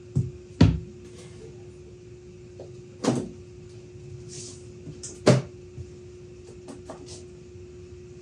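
Plywood box being handled and set down on a table saw top: four sharp wooden knocks, the second the loudest, then a few lighter taps.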